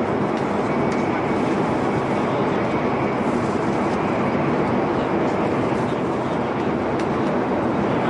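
Steady running noise of a metro train in motion, with a few faint clicks.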